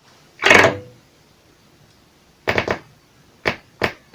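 A handful of sharp knocks and clicks: a strong one about half a second in, a quick run of three near the middle, then three single ones near the end.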